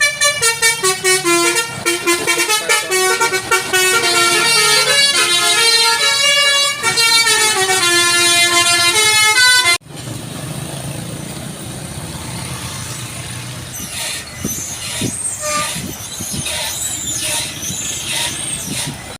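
Multi-tone basuri 'telolet' air horn on a bus playing a loud, quickly stepping melody. About ten seconds in it cuts off abruptly, and the rest is a bus engine running amid traffic with a few short bursts of hiss.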